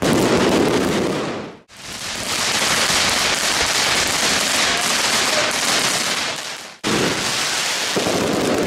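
Fireworks going off in a dense, continuous din of bursts and crackle. The sound cuts off abruptly and resumes twice, once under two seconds in and again near the end, as one clip gives way to the next.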